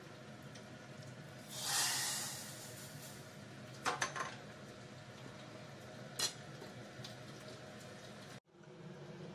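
Hot oil tempering (tadka) poured from a small metal ladle into lentil stew in a glass bowl, sizzling loudly for about a second and dying away. This is followed by a few sharp metal-on-glass clinks and a click near the end.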